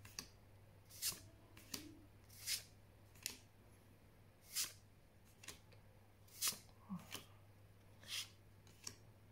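Magic: The Gathering cards slid one at a time from the front of a small hand-held stack to the back, each move a short papery swish, about one a second. A low steady hum runs underneath.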